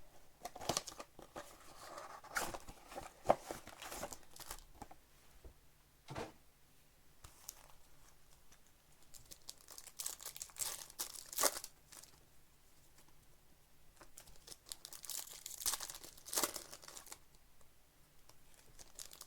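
Plastic wrapping on a sealed trading-card box and its packs being torn open and crinkled by hand, in irregular bursts with short pauses.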